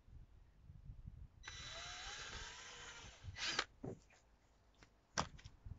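Worx cordless drill running for under two seconds, drilling a pilot hole through plastic water pipe, its motor pitch rising as it spins up. Then come two sharp knocks, the loudest sounds.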